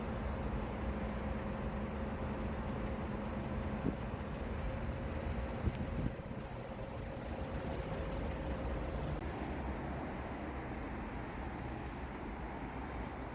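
Steady low rumble of distant road traffic, with a faint steady hum that fades out about nine seconds in and two small knocks in the middle.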